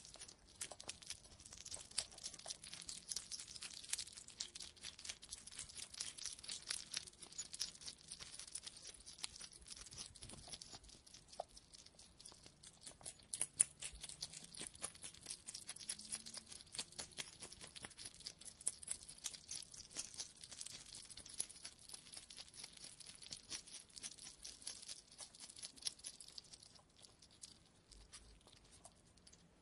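Hedgehog making a faint, dense run of rapid crackling clicks, with one louder click about halfway through.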